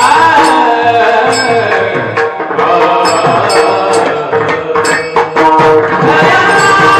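Marathi kirtan music: a sung devotional melody with mridang drum strokes and bright ringing hand-cymbal strokes over a steady held drone note.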